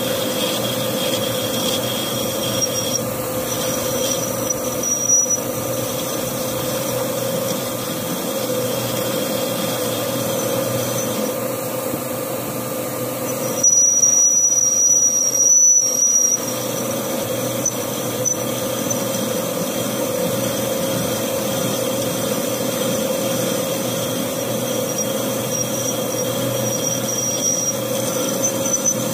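Metal lathe turning a motorcycle magneto coil housing while the cutting tool takes off metal, cutting away the old weld to free the worn part: a steady machine hum with a thin high whine. About halfway through it gets louder for a couple of seconds with a shrill high tone from the cut.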